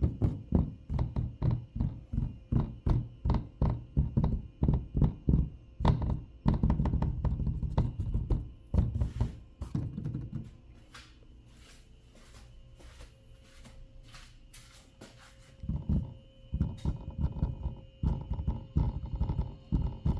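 A hand taps the plastic front air intake cover under a Tesla's hood, about three quick taps a second, and the cover rattles and clicks with each tap. The tapping pauses for a few seconds in the middle, then starts again. The rattle comes from the clips holding the cover, which have a small gap in their pockets.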